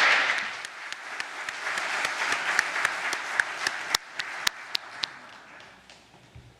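Audience applauding, loudest at first, then thinning to scattered separate claps and dying away near the end.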